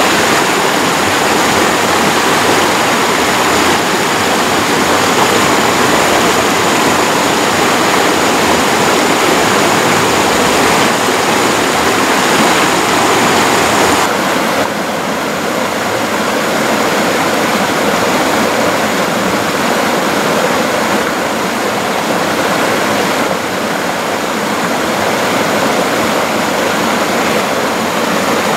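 A fast-flowing stream rushing over rocks: a steady, loud rush of water. About halfway through it turns a little quieter and duller.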